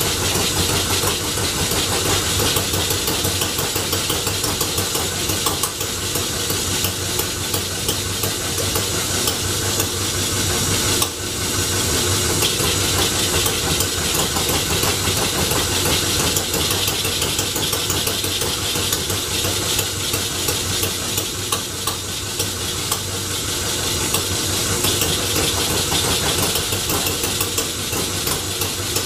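Home-made Scotch yoke flywheel engine being turned over on the belt by an electric motor, with a steady fast clatter over a low hum. It is a brand-new engine on its first trial run, not yet running on its own.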